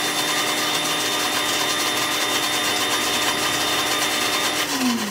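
Countertop blender running at a steady pitch, blending oatmeal pancake batter. Near the end it is switched off and the motor's whine falls in pitch as it winds down.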